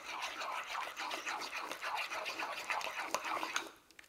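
Metal spoon stirring thick mayonnaise in a ceramic ramekin: rhythmic wet scraping strokes against the bowl, stopping about three and a half seconds in.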